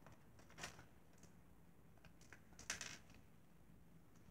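Faint handling noise from a small clear plastic bag of beads: light clicks and crinkles, with one slightly louder tick about half a second in and a short cluster near three seconds.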